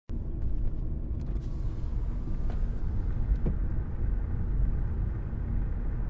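Steady low rumble of a car's engine and tyres heard from inside the cabin while driving, with a few faint clicks.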